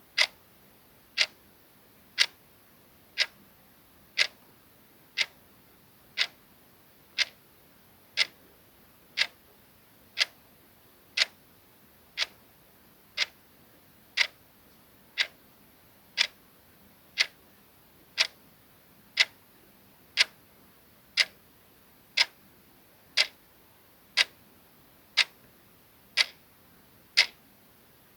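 Clock-ticking sound effect: one short, sharp tick every second, evenly spaced.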